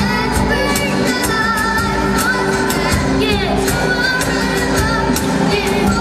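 A children's band playing live: a girl singing the melody into a microphone over strummed acoustic and electric guitar and steady hand percussion on a cajón.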